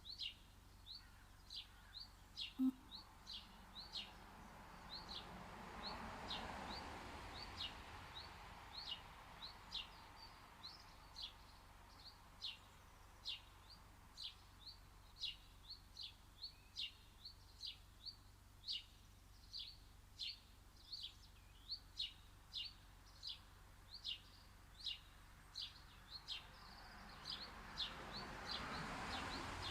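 A single bird chirping over and over, short high chirps at about two a second with a steady pace. A faint rushing noise swells and fades twice, once around six seconds in and again near the end.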